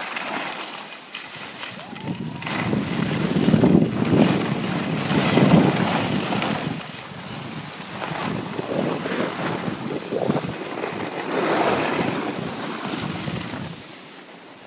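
Wind rushing over a phone's microphone during a downhill ski run, mixed with the hiss and scrape of skis on packed snow. It swells and eases in surges and drops away about a second before the end.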